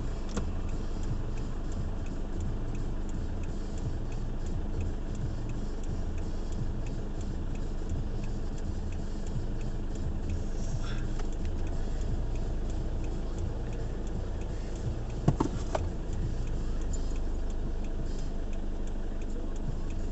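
Inside a stopped car, the engine idles with a low hum while the turn-signal indicator ticks steadily. A single sharp knock sounds about fifteen seconds in.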